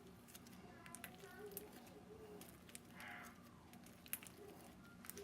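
Near silence, with scattered faint clicks and crackles of a foam-bead slime being handled.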